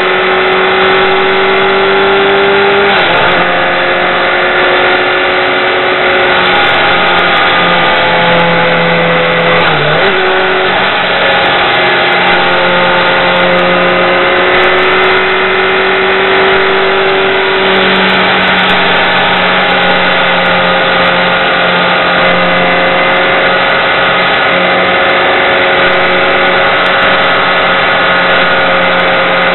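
BMW K1200R motorcycle's inline-four engine running under way at road speed, over steady wind and road rush on the helmet-mounted microphone. The engine note steps down a few seconds in, dips briefly and recovers around the middle, and climbs again a little later as the rider works the throttle through the curves.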